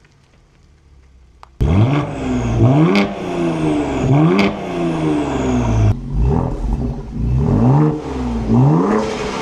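Ford Explorer ST's twin-turbo 3.0-litre V6 on an aftermarket 3-inch cat-back exhaust being revved in a series of about six quick blips, starting a moment or so in. There are two sharp pops, and a faint falling turbo whistle follows several of the revs.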